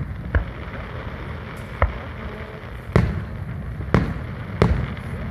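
Aerial firework shells bursting: five sharp booms a second or so apart, the last three the loudest, over a steady background rumble.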